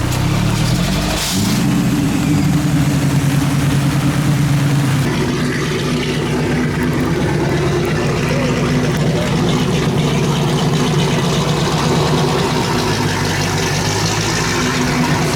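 Car engine running close by, rising briefly in revs in the first second, then settling into a steady drone.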